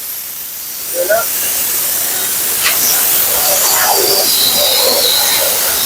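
High-velocity pet dryer blowing a steady loud hiss of air through a Siberian husky's thick double coat, with the husky making brief, faint talking sounds about a second in and again a few seconds later.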